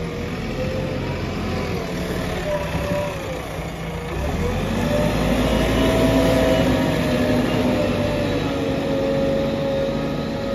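JCB 3DX backhoe loader's diesel engine running as the machine drives, with a steady whine over the engine note. The engine grows louder about four seconds in as the machine passes close by.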